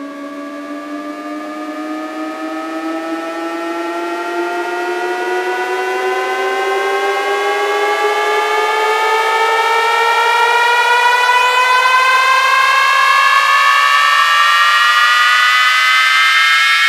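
Electronic synthesizer riser: a buzzy tone with several overtones gliding slowly upward in pitch and steadily growing louder, a second set of lines drifting apart and crossing it, the build-up that opens a DJ sound-check track.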